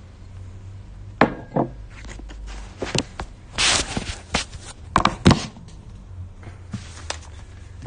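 Handling noise on a phone's microphone: a string of sharp knocks and bumps with a brief rustle a little before the middle, the loudest knocks about five seconds in, as the phone is grabbed and moved about.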